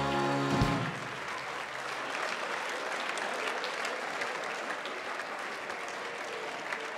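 Audience applauding steadily in a crowd. The held chord of a band breaks off just under a second in.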